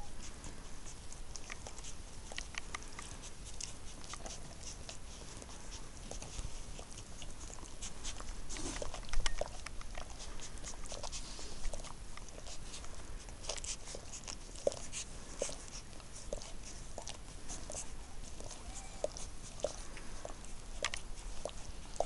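Two-week-old lurcher puppies suckling from their mother: a continuous run of small wet clicks and smacks, with brief high squeaks from the pups, more of them in the second half. About nine seconds in there is one short, louder burst of sound.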